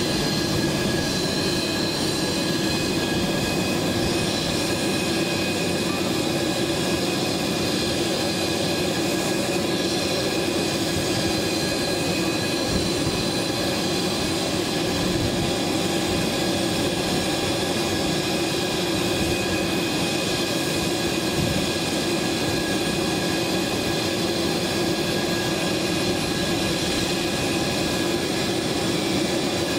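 Twin Honeywell TFE731 turbofans of an IAI Astra SPX business jet running at taxi power: a steady, high whine over a low rumble.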